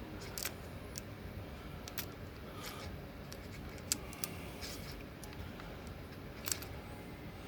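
Light handling noise: a few faint, scattered clicks and rustles as wires and small parts are moved about, over steady low background noise.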